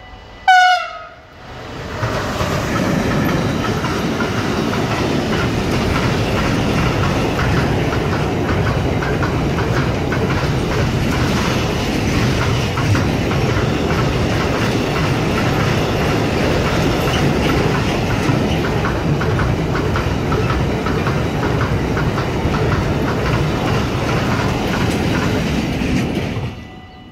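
Siemens Vectron electric locomotive sounding a short horn blast, its pitch dropping. The container train's wagons then roll past with a steady rumble and clickety-clack of wheels over rail joints, which stops abruptly near the end.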